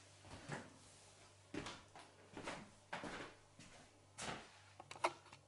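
Soft, irregular rustles and knocks of a person getting up from her seat and walking away: shifting clothing and footsteps, about six in all, over a faint steady room hum.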